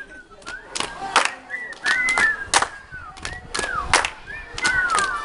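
Body percussion: a dozen or so sharp hand claps and slaps at an uneven beat, over high gliding tones that rise and fall.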